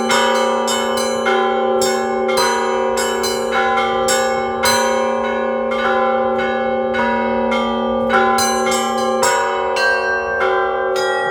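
Church bells of an Orthodox cathedral pealed together as an ensemble: quick, irregular strikes of small high bells over the sustained ringing of larger, deeper bells.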